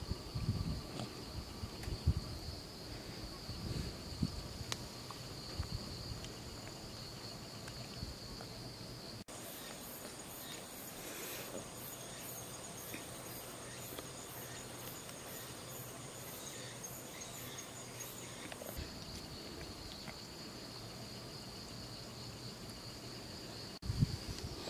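Insects singing in a steady high trill. For a stretch in the middle, after a cut, a different, higher insect song takes over, pulsing about twice a second. A few soft low knocks sound in the first seconds.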